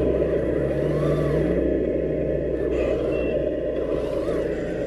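Radio-controlled 8x8 wrecker truck driving through snow, with a steady truck-engine rumble. A faint whine rises and falls twice as it moves.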